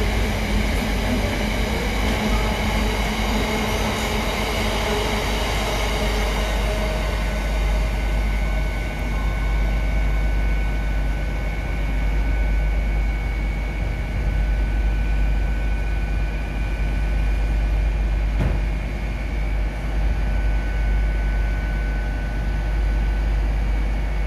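An intermodal container freight train passing through and drawing away: a steady heavy rumble, with several high ringing tones over the first several seconds that give way to a steadier high whine.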